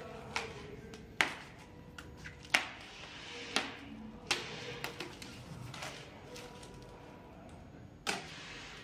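Protective plastic and fabric packing wrap rustling and crackling as gloved hands pull it off an electric chopper scooter's handlebars, with several sharp snaps, the loudest about a second, two and a half seconds and eight seconds in.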